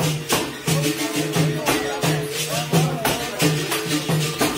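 Background music with a steady beat: shaker strokes about three times a second over a repeating low note.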